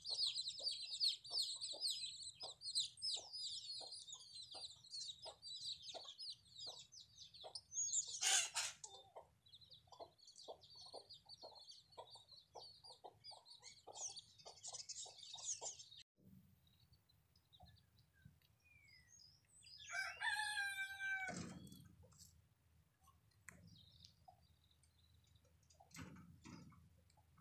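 Small birds chirping busily with a steady run of soft ticks through the first half, then a rooster crows once, about two-thirds of the way through.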